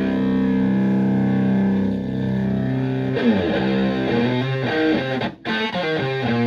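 Electric guitar played through a Tone Bender MkI-style "Golden Eagle" fuzz pedal into a Twin Reverb-style amp. A fuzzed chord rings out for about three seconds, then slides down into a run of shorter notes, with a brief break in the playing just past five seconds.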